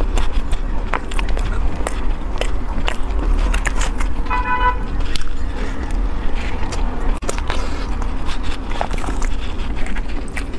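Close-miked eating: a spoon scraping a plastic dessert box and chewing of a soft, meat-floss-topped mochi dessert, heard as many short wet mouth clicks over a steady low rumble. A brief horn-like tone sounds about four and a half seconds in.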